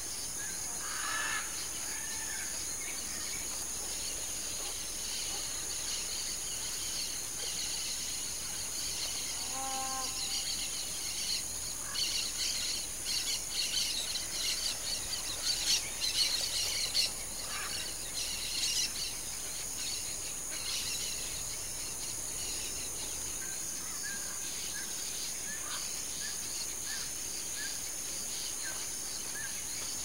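Steady high-pitched insect chorus with bird calls over it: a short call about a third of the way in, a burst of rapid chattering calls in the middle, and a run of short repeated chirps near the end.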